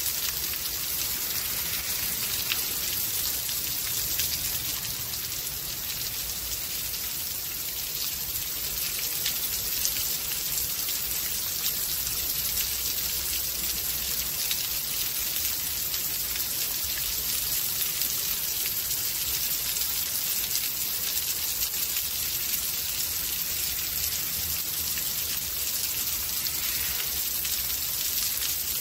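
Steady rain falling in a rainstorm: an even hiss of rain with many fine individual drop ticks, with no let-up.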